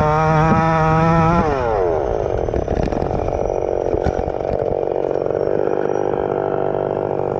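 Two-stroke chainsaw engine powering a converted minibike, running hard at high revs, then falling in pitch about a second and a half in as the throttle comes off. It settles to a lower, rougher running through a nearly stock muffler.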